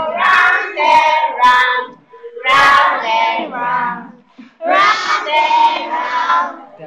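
A class of schoolchildren singing a song together, heard through a video call. They sing in phrases with short breaks about two seconds and four and a half seconds in.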